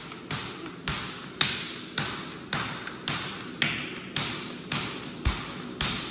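Hammer blows on red-hot knife steel on an anvil, a steady rhythm of about two strikes a second, each leaving a bright metallic ring: the blade being forged.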